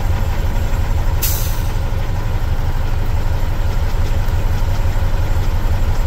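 Cat C15 diesel engine idling at about 700 rpm, heard from inside the truck's cab, during a cylinder cutout test that cuts out one cylinder at a time. Cylinder three, cut out here, is not firing. A brief hiss comes about a second in.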